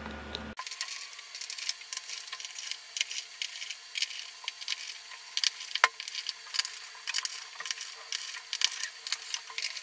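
Small screwdriver backing out screws from the X-ray sensor's panel: a run of light, irregular metal clicks and scrapes, with one sharper click about six seconds in.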